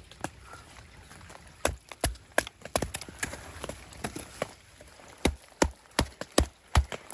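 A series of sharp, irregular knocks, about a dozen, starting a couple of seconds in.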